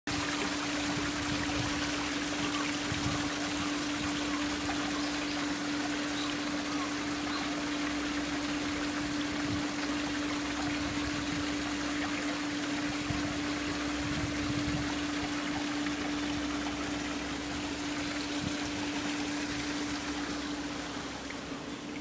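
Small rock waterfall: water trickling and splashing down over stones in a steady rush, with a steady hum underneath.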